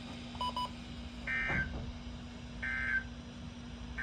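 NOAA Weather Radio SAME end-of-message data bursts from a weather radio receiver: short buzzy digital bursts repeating about every 1.3 seconds, marking the end of the weekly test. Two quick beeps come just before them, over a steady low hum.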